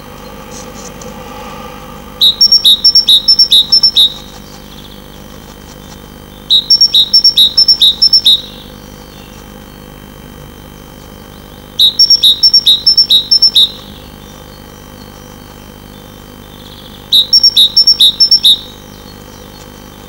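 Great tit singing its two-note song, a high note and a lower one repeated four or five times in quick succession. Four such loud phrases of about two seconds come roughly every five seconds over a steady low hum.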